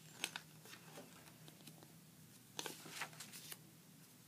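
Pages of a ring-bound paper junk journal being turned and handled: faint paper rustles and light taps, with a busier stretch of rustling about two and a half to three and a half seconds in.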